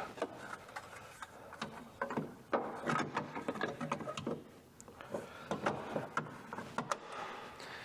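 Irregular light clicks, taps and knocks of hands working in a truck's engine bay, handling wires, cables and small parts.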